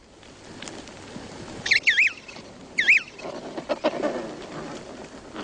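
Emperor penguin chicks whistling: two short, wavering high-pitched calls about two and three seconds in, with fainter lower calls afterwards, over a steady faint hiss.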